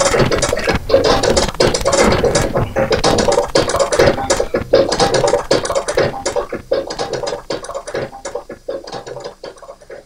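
Distorted electronic jam music from analog synths and samplers: a dense crackling rattle of fast clicks over a steady drone, fading away over the last few seconds.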